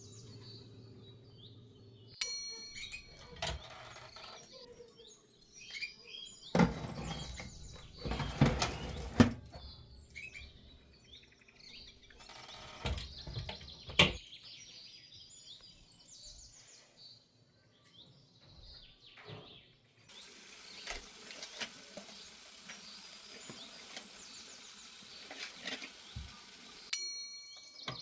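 Birds chirping in the background, with intermittent clicks, knocks and rustling from kitchen work, loudest around a third of the way in.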